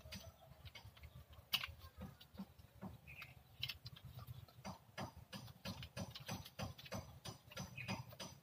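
Faint irregular clicks and taps of a pair of pliers being worked by hand on a thin wire, several a second, over a low rumble.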